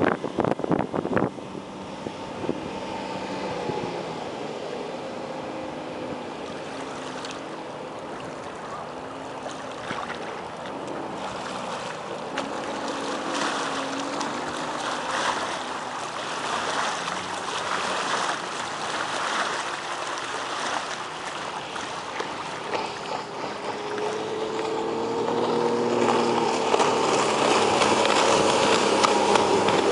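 Mercury 135 V6 two-stroke outboard on a bass boat running at speed, its pitch drifting as the boat moves. It is fainter through the middle as the boat runs far off, then grows louder over the last several seconds as the boat comes back close.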